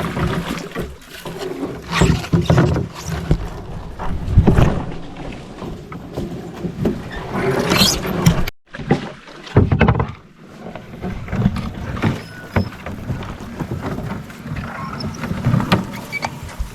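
Canoe being paddled: irregular paddle splashes with knocks and thumps against the hull.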